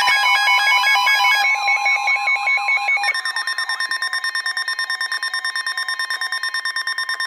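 Weather radio sounding an Emergency Alert System tornado warning alert: electronic alarm tones beeping rapidly. About three seconds in they change to a steadier tone near 1 kHz, pulsing fast, about nine beats a second.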